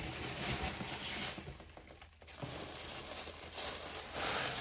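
Packaging rustling and crinkling as it is handled, with a brief pause about two seconds in.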